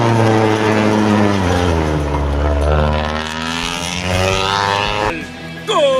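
Rally car's engine at high revs passing on a gravel stage, its pitch falling steadily as it goes by and fades. Near the end, music starts with a tone that sweeps down and then holds.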